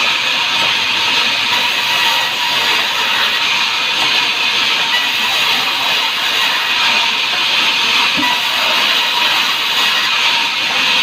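Sawmill saw running, a steady even hiss with no breaks.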